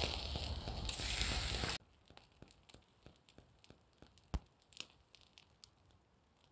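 Steaks sizzling on a small stainless steel camping grill over a wood campfire: a steady hiss that cuts off abruptly about two seconds in. After that come faint, scattered crackles and pops of the burning wood, with one louder pop near the middle.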